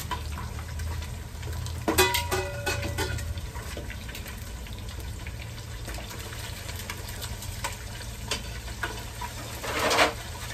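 Metal tongs and pot clanking, a sharp strike with a brief ring about two seconds in, over a steady low hum and a faint crackle of hot cooking oil. Near the end comes a short burst of sizzling as food meets the hot oil in the pot.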